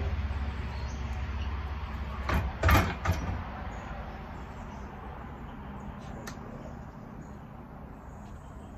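Short clatter of clicks and knocks from a small chainsaw's bar and chain being handled and fitted, about two and a half seconds in, with a single faint click later. A low hum fades away over the first few seconds.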